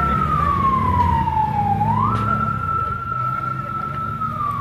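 Emergency vehicle siren wailing, over a low rumble. About two seconds in, after a slow slide down, its pitch jumps quickly back up and holds high, then starts to slide down again near the end.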